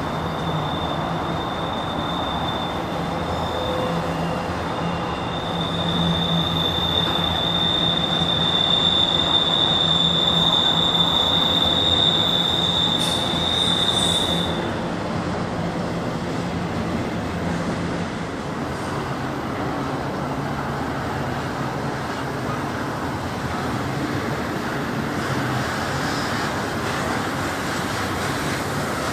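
Train cars rolling past, with a steady high-pitched wheel squeal for about the first half that cuts off about halfway through.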